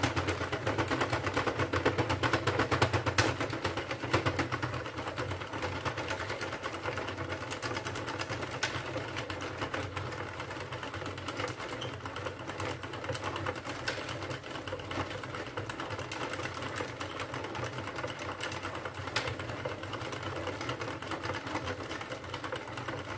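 Sentro 48-needle plastic knitting machine being hand-cranked round, its needles clicking and rattling in a fast steady stream as it knits rows of waste yarn in the round. A sharper click comes about every five seconds.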